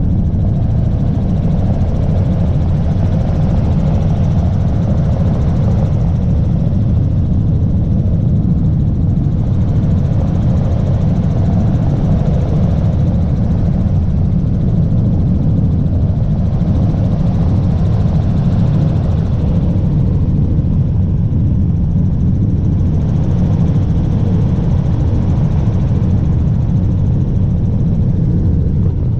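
Helicopter in flight heard from inside the cabin: a loud, steady drone of the engine and rotor that does not let up.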